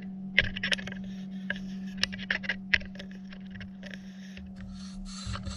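Phillips screwdriver working screws in a car door panel: scattered small clicks and scrapes of the metal tip turning in the screw heads, over a steady low hum.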